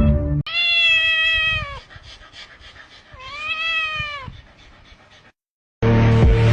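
A cat meowing twice: two long, drawn-out meows about two seconds apart, each falling in pitch at the end. Music plays briefly at the start and comes back near the end.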